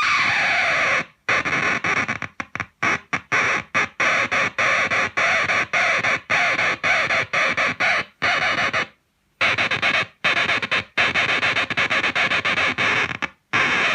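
Electric guitar, a Gibson SG '61 reissue on its neck pickup, played through a Zvex Fuzz Factory pedal into a Roland Cube 30 amp: a harsh, sputtering fuzz that cuts off abruptly again and again in quick choppy stabs, with a few short gaps of silence.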